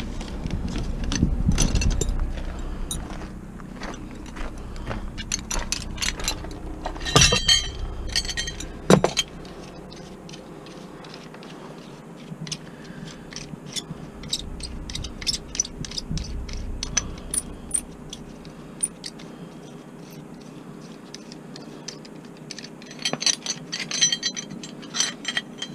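Scrap metal parts clinking, knocking and scraping as they are handled, with many small clicks and two louder knocks about seven and nine seconds in.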